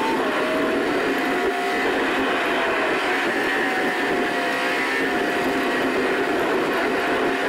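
Car cabin noise while driving: a steady drone of engine and tyres on the road, with a faint whine that drifts slightly in pitch.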